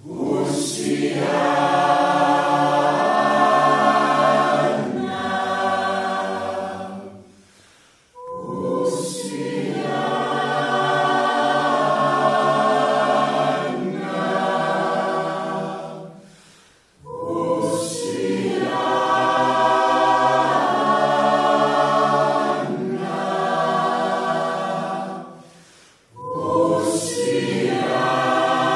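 Mixed choir of men and women singing a Greenlandic hymn a cappella, in sustained phrases of about eight to nine seconds with a brief break between each.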